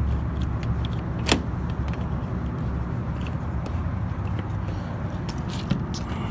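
Steady low hum of a running rooftop HVAC package unit, with a sharp click about a second in and a lighter one near the end.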